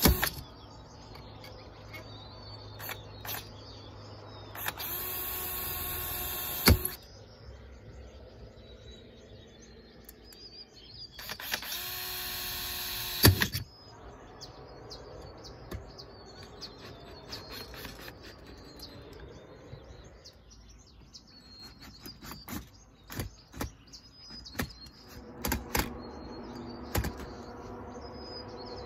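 A cordless drill runs in two bursts of about two seconds each, each ending with a sharp click, drilling and driving small stainless steel screws into aluminum tubing. Between the bursts there are scattered light clicks of handling, and birds chirp in the background.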